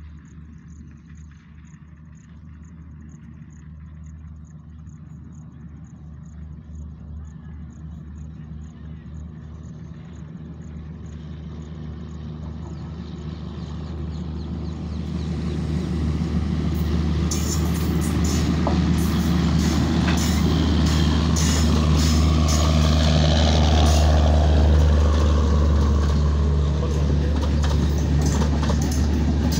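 Two diesel locomotives hauling an express passenger train, their steady low engine drone growing louder as the train approaches. In the second half it is loudest as the locomotives pass, and the coaches' wheels click rapidly over the rail joints.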